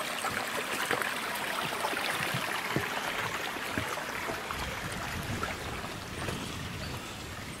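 A small woodland stream running, with footsteps on dry leaf litter. The water slowly fades toward the end.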